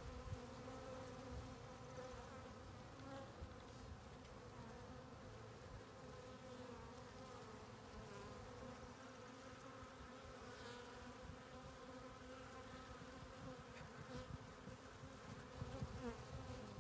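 A swarm of honeybees buzzing, a faint steady hum with a few overtones.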